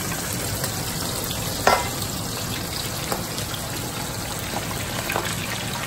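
Snapper deep-frying in vegetable oil in a large Dutch pot, a steady sizzle. A sharp clink comes about a second and a half in, with a few lighter utensil taps later.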